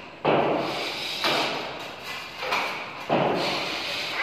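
Drywall knife scraping joint compound along a gypsum-board joint, in about four strokes, each starting sharply and fading away.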